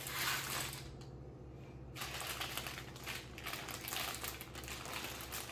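Plastic LEGO pieces clicking and rattling as they are handled and sorted, a string of small irregular clicks with a short lull about a second in.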